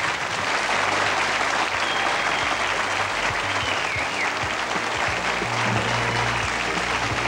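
Large audience applauding steadily, with music playing underneath.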